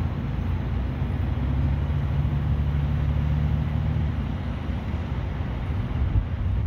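Steady low hum of an idling engine, like a vehicle running nearby.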